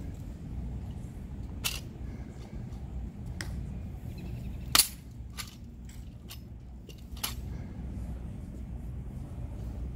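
An M14 rifle being handled during a ceremonial rifle inspection: a series of sharp, separate clicks and snaps of metal parts and gloved hands on the rifle, the loudest about halfway through, over a low steady rumble.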